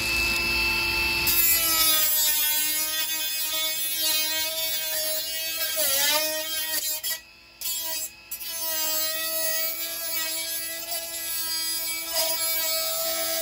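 Cordless cut-off tool with a small abrasive wheel running at a steady high whine while an aluminium drink can is held against it to cut out a patch. About six seconds in the pitch dips and wobbles as the wheel bites. The tool stops briefly twice, then whines steadily again.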